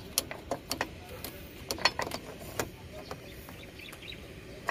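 Irregular sharp metallic clicks and taps, thickest in the first two and a half seconds, as a screwdriver and hands work the brake housing of a Cessna 208B Grand Caravan's main wheel into place.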